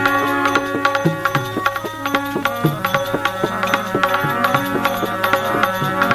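Instrumental interlude of a Gujarati bhajan: tabla drumming a quick rhythm over sustained melodic tones.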